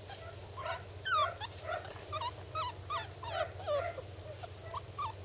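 Five-week-old puppies whimpering and yipping: a run of short, high, squeaky cries that bend up and down in pitch, starting about a second in and coming two or three a second, with several puppies overlapping.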